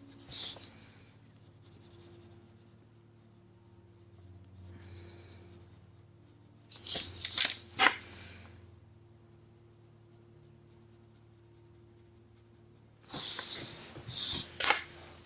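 Wax-based coloured pencil scratching across smooth paper in short runs of strokes: briefly near the start, a louder run about seven seconds in, and another near the end. A faint steady hum lies under it.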